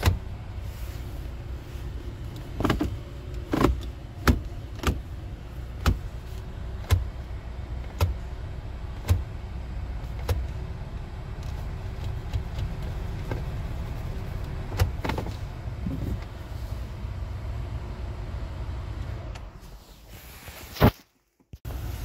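Low steady hum of a Volvo V60 at idle, with a series of sharp clicks about once a second, mostly in the first half, as the gear lever is tapped through the manual gears in sport mode, which work again now that the broken wiring to the gear shift module is repaired. A louder knock near the end.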